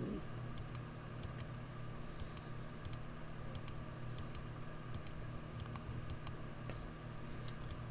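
A computer mouse clicking repeatedly to step through images, a click or a quick pair of clicks about every second, over a faint steady low hum.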